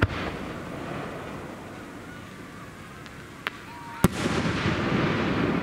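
Aerial fireworks shells bursting: a sharp bang at the start, two lighter cracks about three and a half seconds in, then a loud bang just after four seconds followed by a lingering wash of noise.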